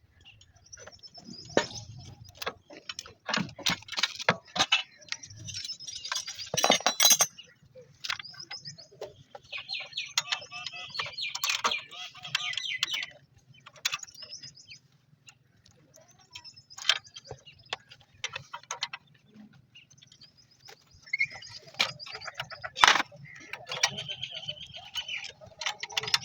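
Scattered sharp metal clicks and clinks from hand work on engine parts, with birds chirping in the background.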